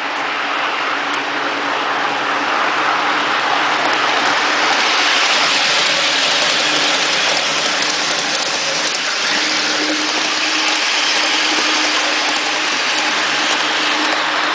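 Garden-railway model train running fast along its track, heard from a camera on its roof: a steady rushing rolling noise with a faint hum from its electric motor, growing a little louder about four seconds in.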